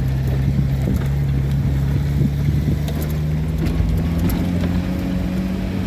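Vehicle engine pulling in second gear on a steep dirt track, its note rising slowly and steadily, with scattered clicks and rattles over it.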